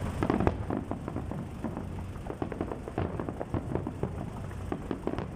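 New Year fireworks crackling and popping: many rapid, irregular sharp pops over a low rumble.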